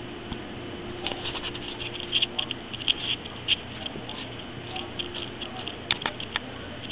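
Irregular clicks and scratches of a kitten's claws and paws batting and catching at a camera strap close to the microphone, busiest in the first half and again near the end.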